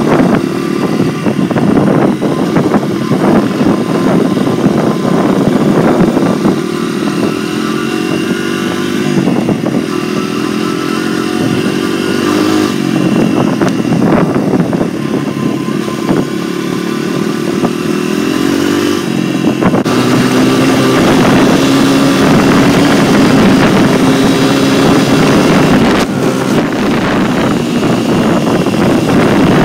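Dirt bike engine heard from the rider's seat, pulling up through the gears in a series of rising sweeps, then running at a steadier, higher pitch for the last third.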